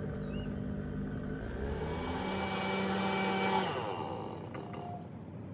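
A landscaper's small engine running steadily. Its pitch steps up about a second and a half in and it grows louder, then the pitch drops and the sound fades toward the end.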